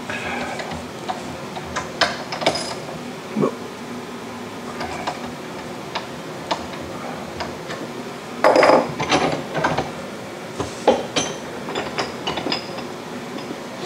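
Scattered metallic clicks and clinks of a wrench working on a Ford Model T connecting rod's cap nuts and of the cap being loosened in a vise, with a denser run of louder clinks a little past the middle.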